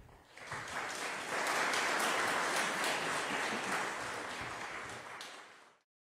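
Audience applauding: a dense patter of clapping that builds over the first second or so, holds, then fades away quickly near the end.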